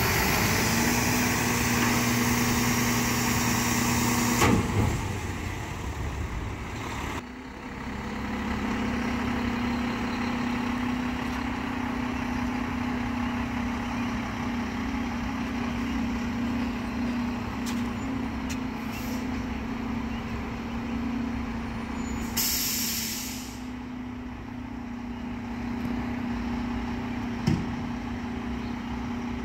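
Mack MRU front-loader garbage truck's diesel engine running steadily as the truck pulls away, the drone dropping somewhat after the first few seconds. A sharp knock sounds about four seconds in, and a short air-brake hiss comes about three quarters of the way through.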